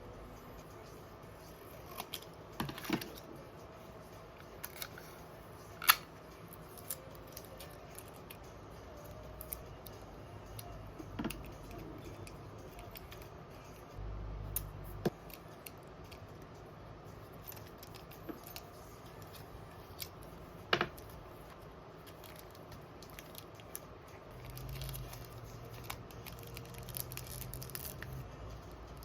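Scattered light clicks and taps of small crafting items being handled, with a short low hum twice.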